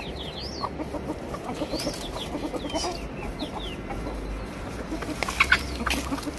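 A flock of chickens clucking continuously as they are let out of their pen, with high, short, falling chirps over the clucking and a few sharp clicks about five seconds in.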